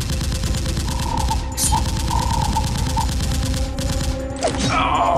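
Dubbed automatic-gunfire sound effect for a toy blaster: a rapid, even string of shots that stops about four seconds in. A falling whoosh follows near the end.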